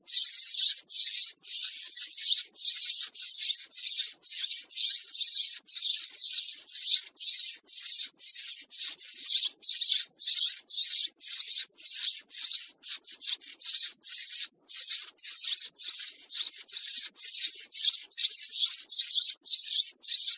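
House sparrow chirping in a rapid, unbroken stream of high chirps, with only brief gaps between runs.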